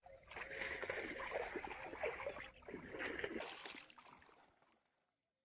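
Irregular splashing and sloshing of water, starting suddenly and fading out after about four seconds.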